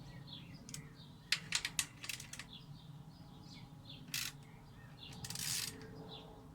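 Metal clinks and knocks of tools against a mountain bike's rear axle nuts and frame as the wheel is set centred for tightening: a quick run of sharp clicks about a second and a half in, a single knock about four seconds in, and a short scraping rasp near the end. Birds chirp faintly in the background.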